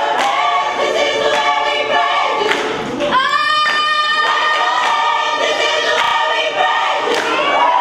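Teenage gospel choir singing, the voices holding one long sustained chord from about three seconds in.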